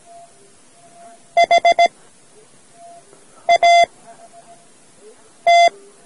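Morse code practice tone sending the word HAT: four quick dits for H, then a dit and a dah for A, then a single dah for T. The beep is steady and mid-pitched, over faint tape hiss.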